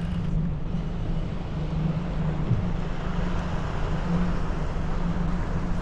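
An engine running steadily: a constant low hum over a rushing background noise.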